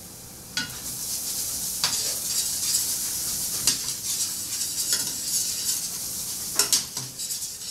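Minced garlic sizzling in olive oil in a stainless steel sauté pan as it is stirred, a steady frying hiss that picks up about half a second in. A few short scrapes and clicks from the stirring utensil against the pan.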